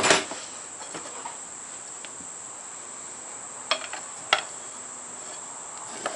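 Crickets trilling steadily in one continuous high-pitched tone, with a few short knocks from handling, one near the start, two in the middle and one near the end.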